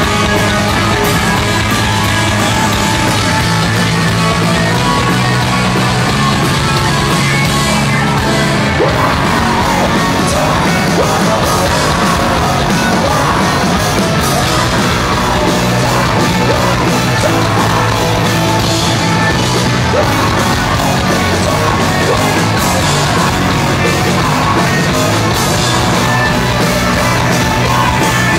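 Loud live heavy rock from a band: distorted electric guitars, bass and drums, with yelled vocals over the top.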